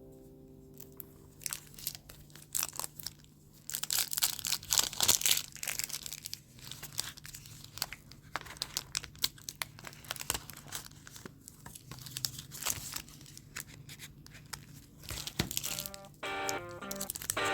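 Irregular close-up scratching and crinkling of paper, in short strokes and rustles. Plucked guitar music comes in near the end.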